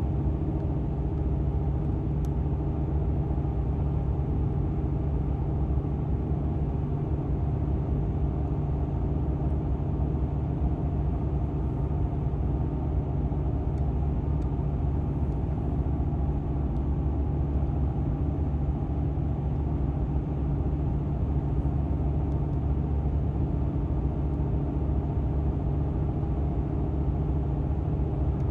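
A car driving at steady speed: an even engine and road drone with a constant low hum.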